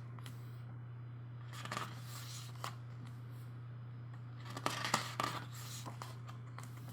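Paper pages of a CD album's photobook being handled and turned, giving short rustles about two seconds in and again around five seconds, over a steady low hum.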